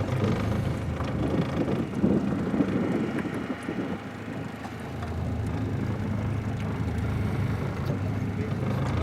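Boat motor running steadily. It eases off for a couple of seconds in the middle, then picks up again.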